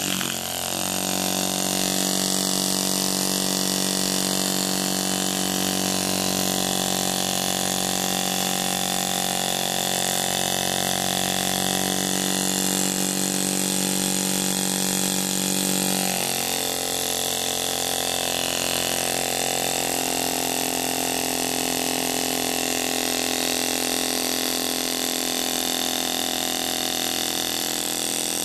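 Brown CO2 engine, a small carbon-dioxide-powered model-aircraft motor, running steadily and spinning its propeller on its first test run after restoration. Its tone changes about sixteen seconds in.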